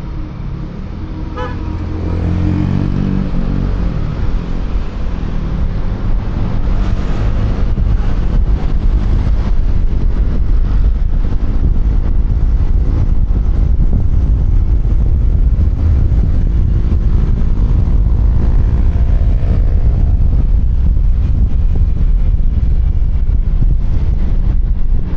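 QJMotor Fortress 160 scooter accelerating, its engine pitch rising over the first few seconds, then running steadily at speed under heavy wind rumble on a helmet-mounted microphone, with traffic around.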